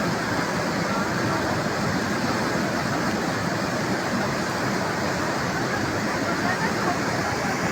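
Flash-flood torrent rushing steadily, a dense unbroken water noise.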